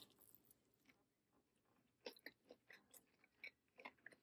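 Faint chewing of a mouthful of fried chicken: near silence at first, then a scatter of soft, short crunches from about two seconds in.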